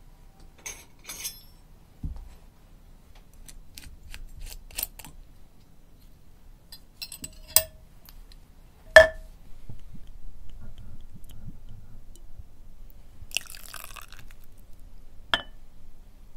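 Kitchen handling sounds from a small glass bottle and a ceramic measuring spoon: the cap unscrewed, then scattered clicks and sharp clinks, the loudest a ringing clink about nine seconds in. A brief pour of liquid follows a few seconds later, with one more clink near the end.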